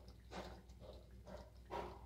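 Thick chicken achari handi gravy bubbling in the pot: four soft plops about half a second apart, the last the loudest, over a low steady hum.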